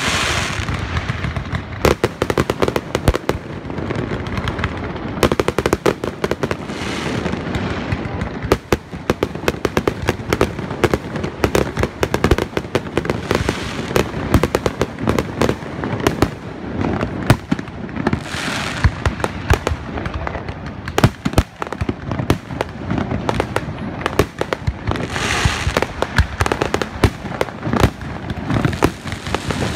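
Aerial fireworks display: a continuous barrage of shells bursting in rapid, irregular bangs, with spells of dense crackling about 18 and 25 seconds in.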